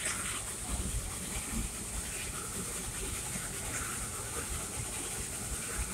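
Dixiana steam train running, heard from an open passenger car behind the locomotive: a steady high hiss over an uneven low rumble.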